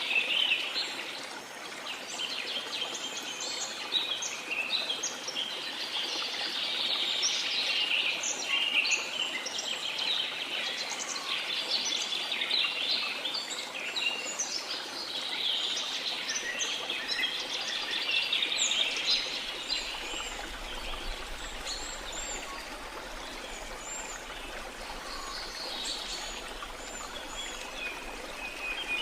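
Rainforest ambience: a dense chorus of many birds chirping and trilling over a steady hiss of falling water.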